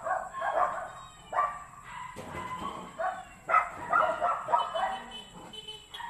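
A dog barking in a run of short barks, one every half second or so, with brief pauses between.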